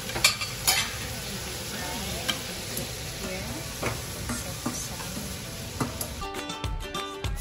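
Flour-coated pork pieces deep-frying in hot oil in a stainless steel wok: a steady sizzle and bubbling, with a few sharp clicks of wooden chopsticks against the pan. Background music comes in near the end.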